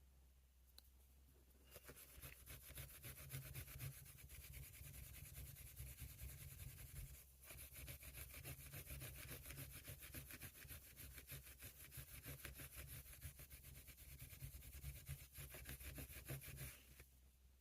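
Fine emery cloth rubbed back and forth by hand on the pocket knife in quick, even strokes, with a brief pause partway through.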